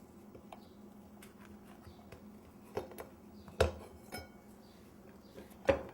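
A few scattered knocks and clinks of dishes and utensils being handled on a counter, the two sharpest around the middle and just before the end.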